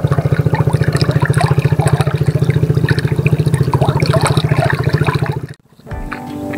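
A small engine running steadily with a fast, even pulse, over water trickling and dripping; it cuts off abruptly about five and a half seconds in.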